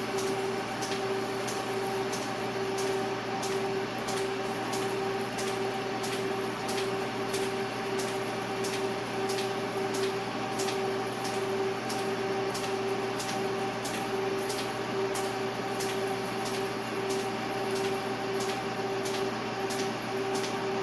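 Machine tool running steadily through a boring cut in a metal tool holder: a constant hum with a fainter overtone above it, and light ticks about twice a second.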